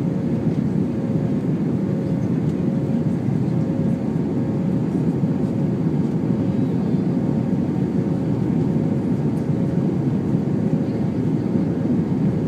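Jet airliner cabin noise in flight: a steady low rumble of the engines and rushing air, with a faint steady hum above it.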